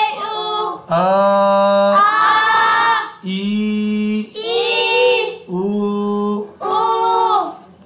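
A voice chanting long drawn-out Quranic vowel syllables in a sing-song recitation, about five held notes with short breaks, the second held longest. These are the lengthened vowels of standing fatha, standing kasra and inverted damma, each stretched to about one alif's length.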